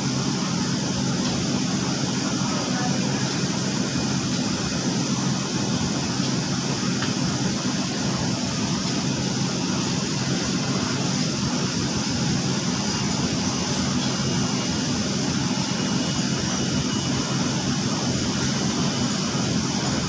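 Steady mechanical drone of machinery running in a commercial laundry: an unchanging low hum with a hiss over it.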